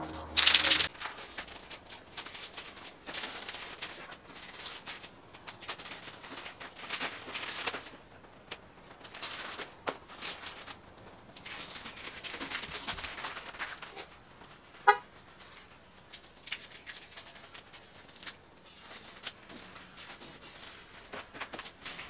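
Masking tape being peeled off a tyre after the wheel was painted: a series of irregular rough rips and rustles. A loud burst of noise comes at the very start, and one sharp click about fifteen seconds in.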